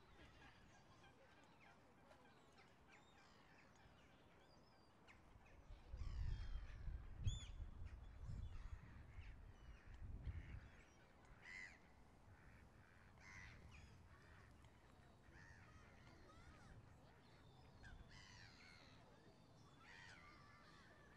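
Faint ambience of scattered bird calls, short chirps and caws dotted through, with a low rumble from about six to ten seconds in.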